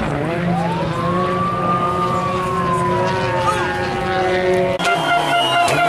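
Rally car engines at high revs: one climbs in pitch and then slowly falls away over several seconds, cut abruptly about five seconds in to another engine note.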